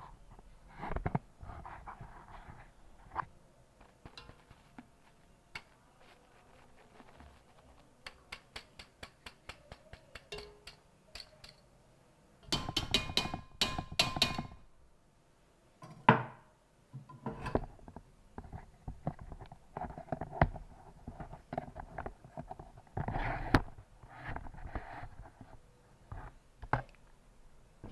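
A kitchen utensil scraping, tapping and knocking against a stainless steel mixing bowl of whipped egg-white mixture: scattered clinks, a quick run of light ticks, a dense clatter in the middle, and one sharp knock about two-thirds of the way through.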